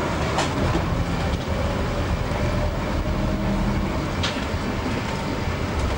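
A moving bus's engine running steadily, heard from inside the bus, along with the rattle of the body and fittings. Two short sharp clicks come through, one near the start and one about four seconds in.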